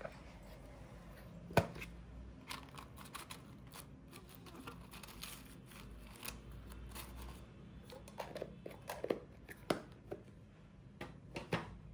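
Small metal tin and the paper cut-outs inside it being handled: a sharp click about a second and a half in, then quick paper rustling and shuffling, and a run of light clicks and taps near the end.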